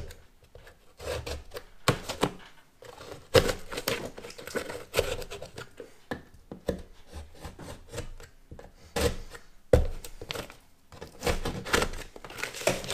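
Utility knife cutting through drywall: irregular rasping strokes of the blade through the gypsum and paper facing, with short pauses between bursts of cuts.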